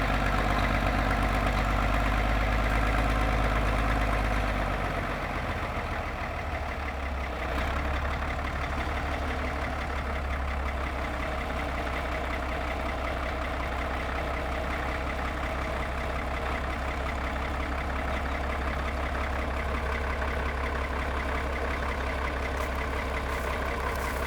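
1950 Caterpillar D6 crawler's six-cylinder diesel engine running steadily. It is louder for the first few seconds, then settles to a lower, even run after about five seconds. It is running on only about four cylinders, with the little valves at the back not tight.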